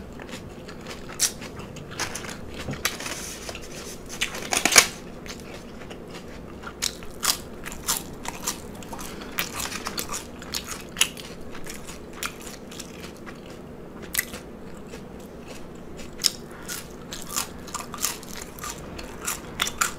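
A person chewing crunchy food right at the microphone: a steady run of wet, crunchy chewing clicks, with a louder crunch about five seconds in.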